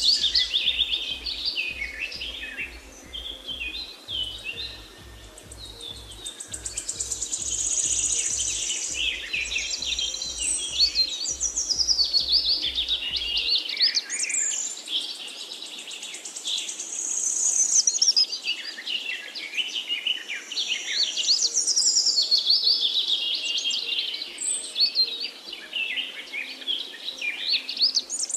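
A chorus of songbirds chirping and trilling, several songs overlapping, with many short, rapid high-pitched trills. A faint low pulsing runs underneath for about the first half, then stops.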